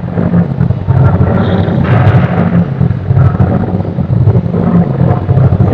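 A loud, steady low rumble of weight-room background noise.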